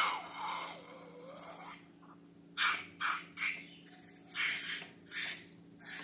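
Rubber balloon handled close to the microphone: a squeal that glides down and back up in pitch, then a run of six short scraping rubs. A faint steady hum lies underneath.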